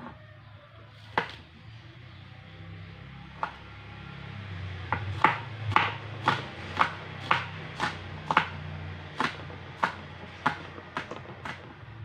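Kitchen knife chopping spring onions on a cutting board: a few scattered cuts, then from about five seconds in a steady run of about two sharp cuts a second, with a low hum underneath.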